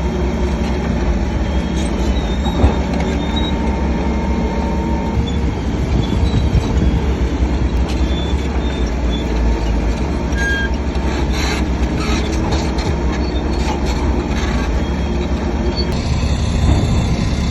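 Shantui DH7C3 crawler bulldozer working: a heavy diesel rumble under high squealing and clanking from the steel tracks, with a sharp knock about two and a half seconds in.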